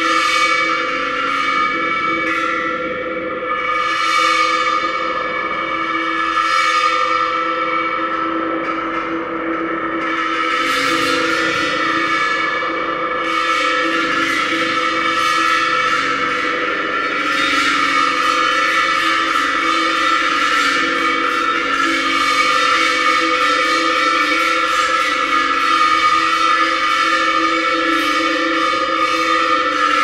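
Small bossed kettle gongs struck with a mallet, their pitched tones ringing on and overlapping. The strikes come a few seconds apart at first and grow thicker from about halfway through.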